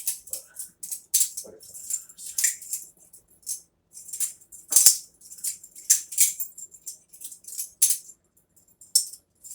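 Butterfly knives (balisongs) being flipped by hand: irregular quick metallic clicks and rattles as the handles swing around the blade and knock together, with a sharper clack about five seconds in and a short lull near the end.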